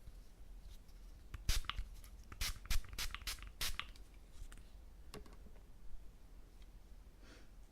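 Close-miked scratching and crackling of an ear-cleaning tool working in a silicone ear model. A quick run of sharp scrapes and clicks starts about a second and a half in and lasts a couple of seconds, followed by a lone click and a softer scrape near the end.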